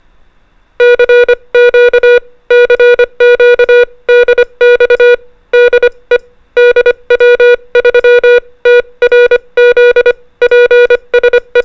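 Morse code sent as a steady mid-pitched beep tone in short dits and longer dahs. It spells out a station identification ending "DE DW3TRZ".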